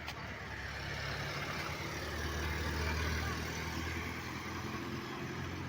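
Motor vehicle engine running with road noise, its low hum swelling a little about two to three seconds in.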